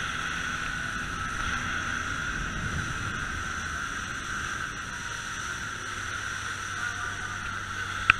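Speedboat running at speed: a steady mix of engine and rushing water and wind. One sharp click comes just before the end.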